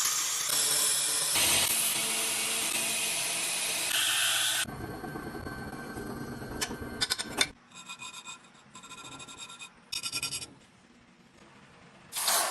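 Titanium being shaped with abrasive tools: several seconds of steady grinding, then a few sharp clicks and three separate rasping strokes. A sudden loud hiss comes near the end.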